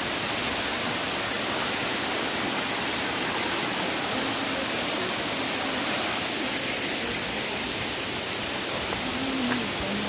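Waterfall heard up close: a steady, dense rush of falling water.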